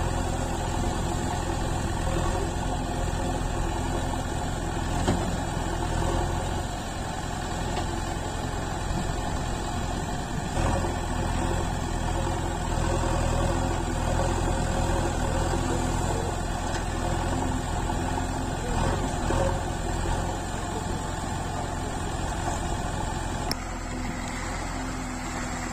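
JCB 3DX backhoe loader's diesel engine running steadily while its backhoe digs. The sound changes abruptly about two seconds before the end.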